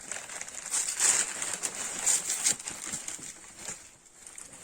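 Wrapping paper rustling and crinkling in uneven spells as a present is unwrapped, louder in the first half and fading off.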